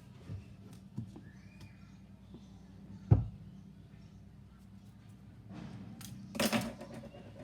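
Manga volumes and their packaging being handled: a few light knocks and one louder thump about three seconds in, then a brief rustle near the end.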